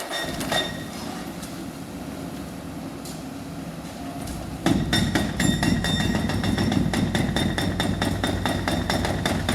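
Demolition of a building by a heavy machine. About five seconds in, a sudden loud crash starts a continuous clatter of breaking and falling rubble and debris, over the low rumble of the machine.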